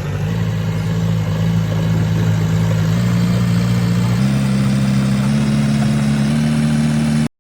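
Diesel engine of a JCB excavator running steadily, its pitch stepping up three times as the engine speed is raised, then cutting off abruptly near the end.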